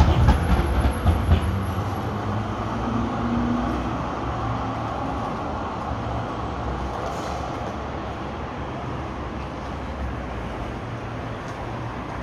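Electric street tram passing, loudest at the start with a low rumble and fading over the first few seconds into steady city traffic noise.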